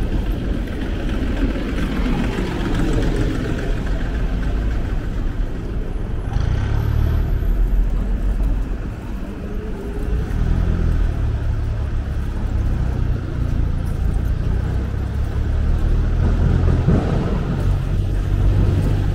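City street traffic: motor vehicle engines running, a steady low rumble.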